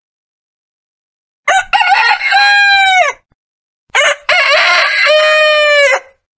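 Rooster crowing twice, each crow ending in a long held note that falls away.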